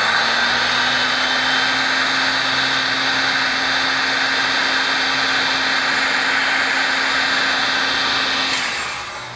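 Heat gun blowing hot air: a steady rush of air with a faint motor hum, fading out as it is switched off near the end.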